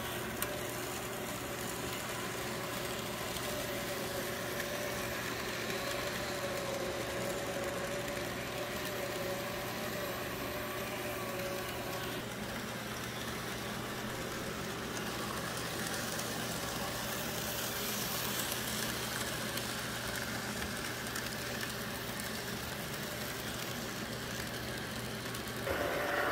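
A steady mechanical hum with a wavering mid-pitched whine over it. About halfway through the whine drops away, and near the end the hum cuts off as a louder sound starts.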